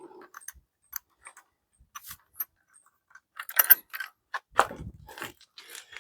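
Light metal clicks and clinks of a wrench on a small bolt and nut as a bike headlight bracket is fastened, scattered and getting busier in the second half.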